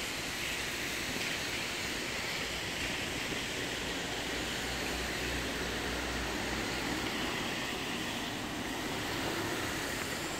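Steady hiss of rain and car tyres on a wet street, with a low rumble from a car passing in the middle.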